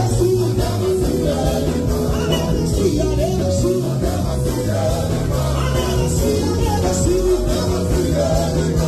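Loud party music with a singer over a heavy bass line, playing without a break.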